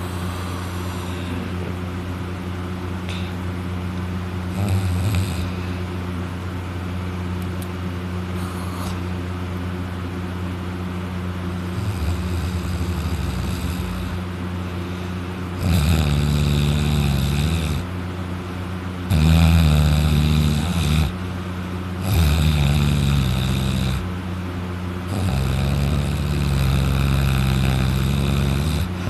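A sleeping man snoring with his mouth open while lying on his back: softer snores at first, then four heavy snores about three seconds apart in the second half, the last one longest, over a steady low hum.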